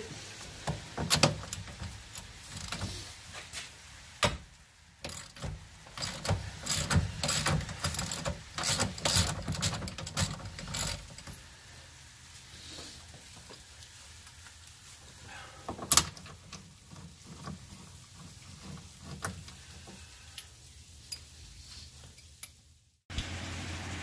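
Ratchet and 24 mm socket clicking and metal clinking in irregular runs for about the first ten seconds, then only a few scattered clicks, as the nut holding the steering wheel on the shaft is loosened.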